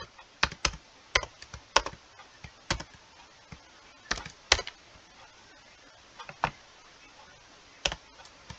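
Typing on a computer keyboard: single keystrokes and short runs of two or three at an uneven pace, with pauses of up to a second or so between them.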